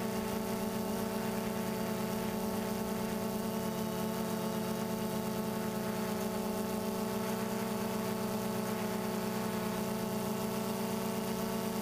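DJI Phantom 2 quadcopter's four electric motors and propellers humming steadily in flight, heard from the camera on the drone itself: an even, many-toned buzz that holds the same pitch and loudness throughout.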